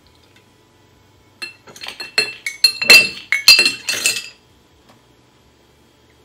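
Small metal funnel clinking against the rims of glass jars as it is set into place: a quick run of sharp, ringing clinks lasting about three seconds, starting a little over a second in.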